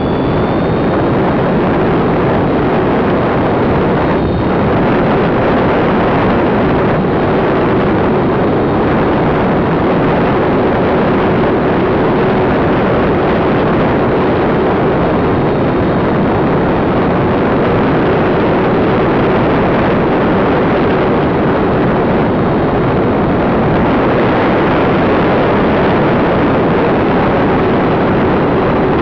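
Wind rushing loudly over the microphone of a camera mounted on the tail of a flying radio-control model plane, with the plane's motor running as a steady hum underneath.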